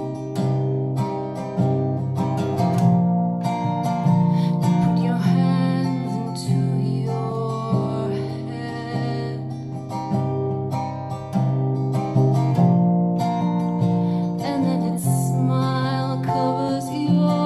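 Acoustic guitar strumming slow chords, with a woman's soft singing voice at times.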